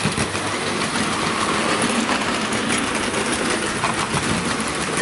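Hornby S15 model steam locomotive running steadily on a model railway layout, its electric motor whirring as its wheels and those of the mineral wagons behind it run over the track.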